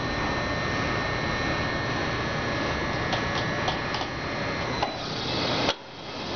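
Industrial roll-handling conveyor machine running as it carries a sheet of fabric over its rollers: a steady mechanical whir with a faint high whine and a few light clicks. The noise drops off sharply near the end, then builds back.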